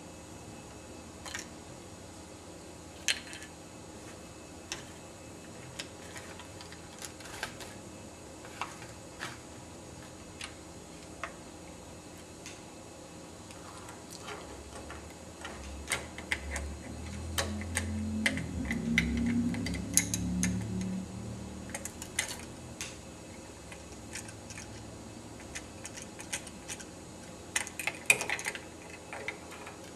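Small plastic clicks and taps of Lego pieces as the toy garbage truck's blue carts are handled and tipped over the hopper, irregular throughout, with a quick cluster of louder clicks near the end. A low rumble rises for several seconds in the middle.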